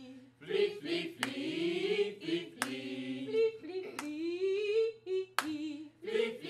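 Small choir singing a cappella, with a sharp hand clap from the director about every second and a half, four times, keeping the beat.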